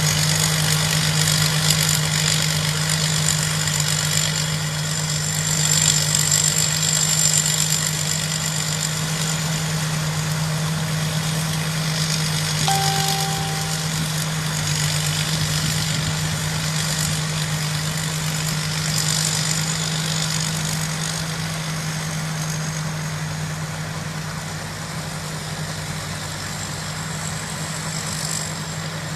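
Thai Charoen Karn Chang combine harvester running steadily, its engine giving an unchanging drone with a thin high whine over it. A short beep sounds once, about thirteen seconds in.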